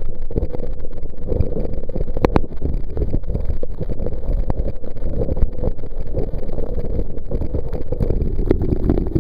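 Waterfall's falling water, a steady low rushing noise with a few faint clicks through it.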